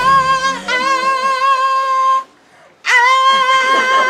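A man's high falsetto singing: two long held notes with a wavering vibrato, the second starting after a short break a little over two seconds in, with a small upward scoop as it begins.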